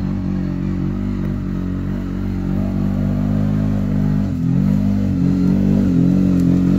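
ATV engine running at a steady speed, then dipping briefly about four seconds in and revving up and down, getting a little louder.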